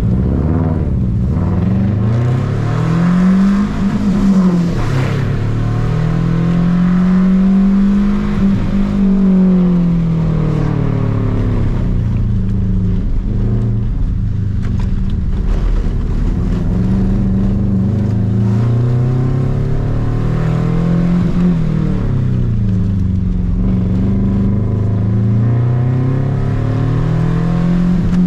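Subaru Impreza 2.5 RS's flat-four engine driven hard, the revs climbing and dropping again and again every few seconds.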